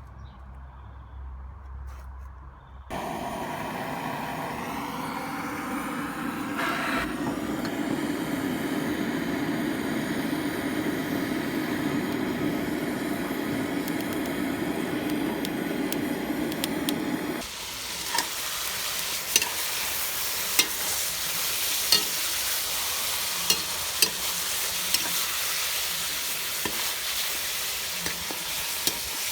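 Meat frying in hot fat in a cooking pot. A steady, lower rushing sound gives way about halfway through to a bright sizzle with sharp pops of spattering fat.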